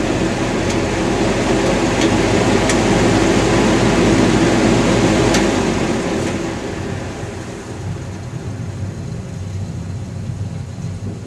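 Vintage JC Penney/Lakewood Model 9700 box fan running with a metal Berns Air King blade: a steady rush of moving air over a low motor hum. Past the middle the sound eases off gradually, as the blade slows.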